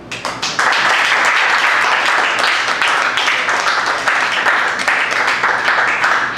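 Audience applauding. The clapping breaks out suddenly, builds within about half a second and then holds steady as a dense patter of many hands.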